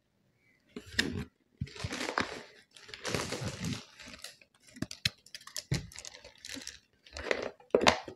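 Cardboard box and plastic wrapping being handled while a speaker is unpacked: irregular rustling and crinkling, broken by sharp clicks and knocks of card. The longest stretch of rustle is in the first half.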